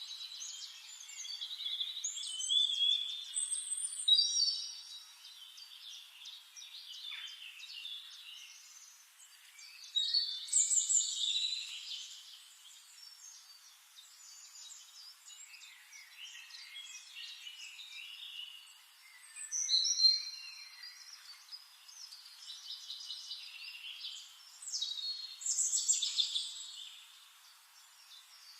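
Songbirds singing and chirping, with a louder warbled song phrase every several seconds among quieter chirps.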